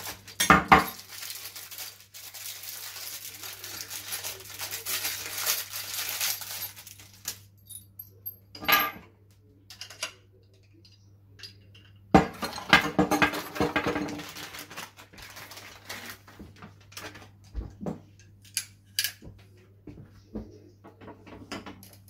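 New uPVC door handles being unpacked: plastic wrapping rustling in two long stretches, with metal handle parts clinking and knocking against a table.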